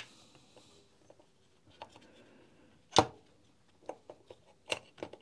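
Small plastic parts of a Makita DTD156 impact driver clicking and tapping as the reverse-switch lever and trigger switch are fitted into the plastic housing. One sharp click about three seconds in is the loudest, with a few lighter ticks near the end.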